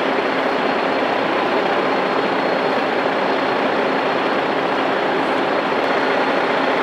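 Heavy trucks' diesel engines running steadily, an even, unbroken rumble and hiss.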